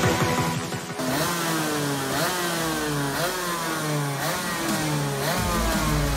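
Two-stroke racing kart engine revved in repeated blips, its pitch rising and falling several times. Music is heard briefly at the start and again near the end.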